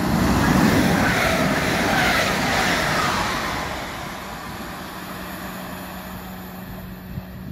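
Non-stopping passenger train running through the station at speed: a loud rush of wheel and air noise with a whine that falls in pitch as it passes, fading away after about four seconds.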